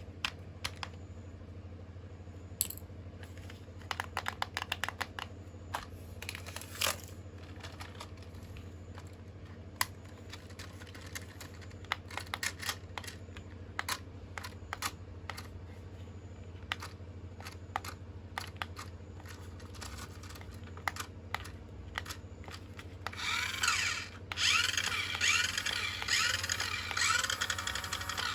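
Scattered small plastic clicks and taps over a steady low hum. Near the end, a small electric toy motor starts whirring loudly, its pitch rising and falling as it revs, like a remote-control car's drive motor.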